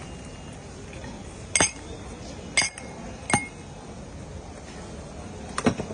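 Sharp metallic clinks, a metal utensil striking metal cookware: four strikes at uneven intervals, the last a quick double near the end, each ringing briefly over a steady background din.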